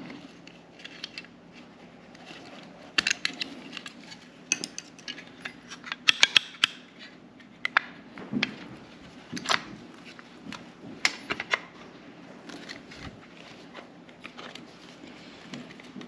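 Irregular sharp clicks and taps from the parts of a Mopar J1772 EV charging handle being handled and fitted together during reassembly, with a quick run of clicks about six seconds in.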